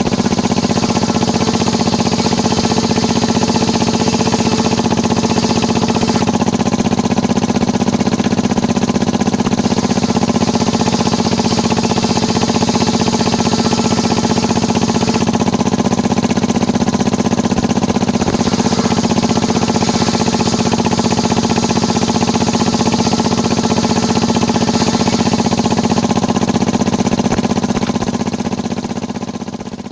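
Engine of a small circular-saw sawmill running steadily, with a high hiss that swells and eases every few seconds, fading out near the end.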